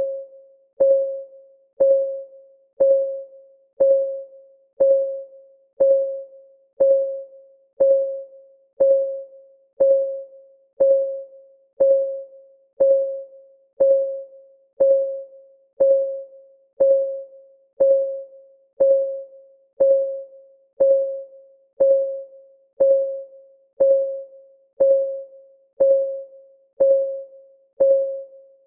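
Clock ticking sound effect of a countdown timer, one tick about every second, perfectly regular. Each tick is a sharp click followed by a short ringing tone at the same pitch that dies away quickly.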